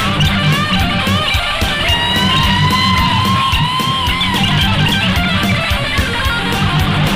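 Heavy-metal music: an electric guitar playing a lead solo with bending, sliding notes over a bass and drum backing with a steady beat.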